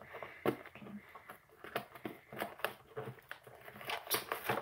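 Hands unpacking a small product box: packaging rustling and crinkling, with irregular clicks and light taps.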